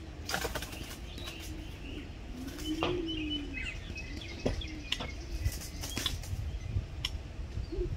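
Doves cooing: a series of about four low, rising-and-falling coos, the loudest about three seconds in. A short flutter of wings comes near the start, with a few sharp clicks scattered through.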